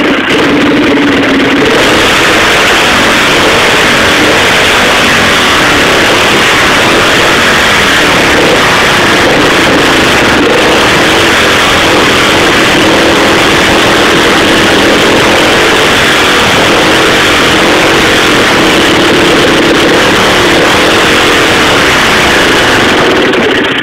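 Harley-Davidson V-twin motorcycle engine running hard through its exhaust pipes, very loud and steady, so close that the recording is overloaded.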